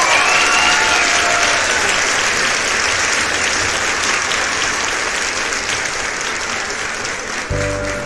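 Crowd applause, a dense steady clapping that slowly fades. A music track with a bass line starts near the end.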